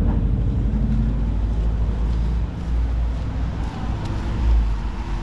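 Street ambience: a low, uneven rumble of traffic on a town street, with wind buffeting the microphone.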